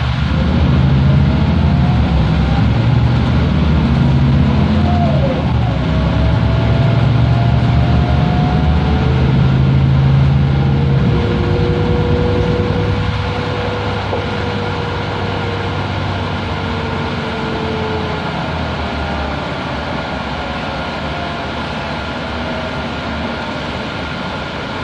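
Mercedes-Benz O405G articulated bus heard from inside the passenger cabin: the engine runs hard under load for about the first eleven seconds, then eases off and the bus runs on more quietly. A thin whine rises and falls in pitch over the engine.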